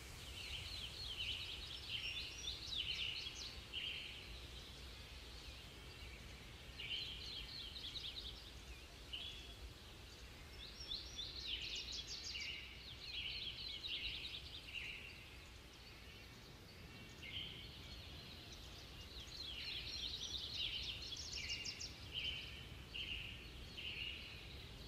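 Birdsong: several small birds chirping and trilling in repeated bursts, over a faint steady low background rumble.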